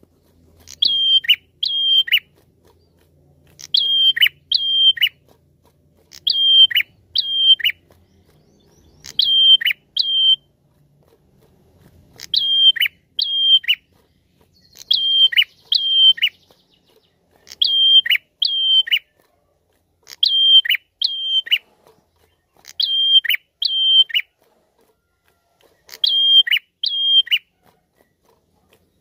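A caged prenjak, a small rufous-capped warbler, calling repeatedly: short phrases of two or three sharp, high whistled notes, each dropping steeply at its end. A phrase comes about every two to three seconds.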